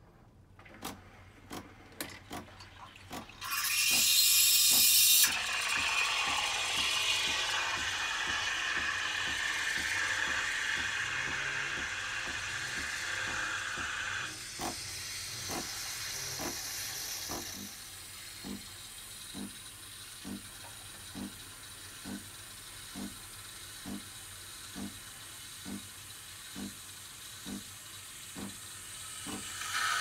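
Nespresso Creatista Plus steaming milk through its steam wand in a steel jug: a few clicks from the machine, then a loud burst of steam hiss about four seconds in and a steady hiss as the milk froths. From about fourteen seconds in, the machine clicks at an even pace, about once a second, while the hiss dies down.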